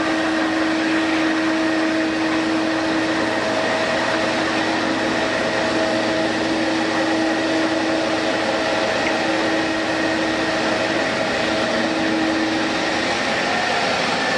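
Boeing 777-200's twin turbofan engines running at taxi power: a steady rush of jet noise with a held low whine and a fainter high whine above it.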